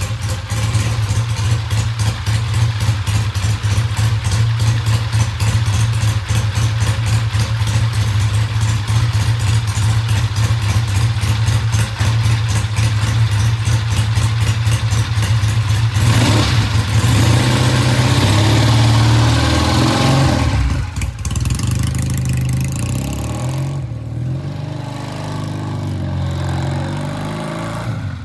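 A 1966 Triumph motorcycle's parallel-twin engine, just started on freshly cleaned plugs, idling with an even, rapid beat. About sixteen seconds in it speeds up and runs louder. After a break it is heard more faintly as the bike is ridden off down the street.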